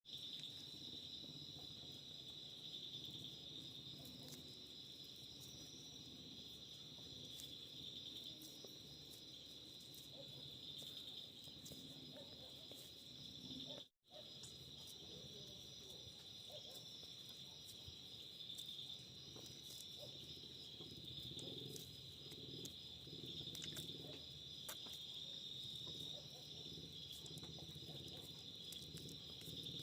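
Mud being crushed and crumbling in faint crackles and crunches, over a steady chirring of crickets. The sound drops out completely for an instant about halfway through.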